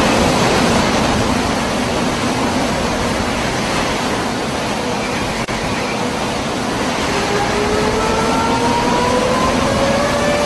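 Outdoor warning siren winding up, its tone slowly rising in pitch from about halfway through and levelling off near the end, sounding a hurricane warning. A loud, steady rushing noise runs underneath throughout.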